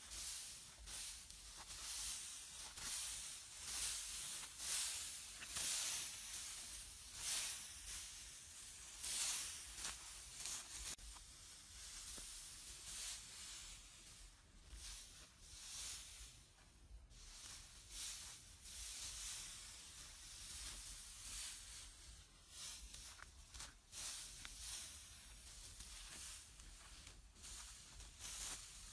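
Dry straw rustling and crackling as it is raked and gathered into a pile by hand, in repeated swishes that thin out about halfway through.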